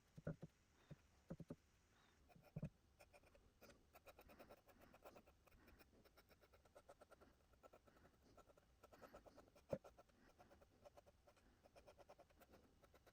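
Faint, rapid scratching strokes of a fine-tip paintbrush drawing lines on wood, with a few small knocks in the first couple of seconds.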